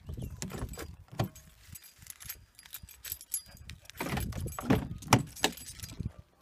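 Car keys jangling as they are carried, then a car door handle pulled and the door unlatched and swung open, giving a cluster of sharp clicks and knocks about four to five and a half seconds in.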